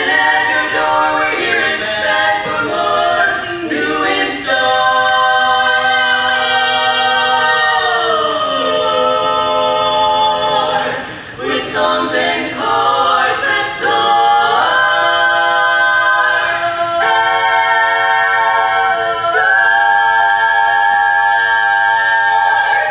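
Women's barbershop quartet singing a cappella, four voices holding long chords in harmony. About eight seconds in the chord slides down in pitch, and there are short breaks between phrases.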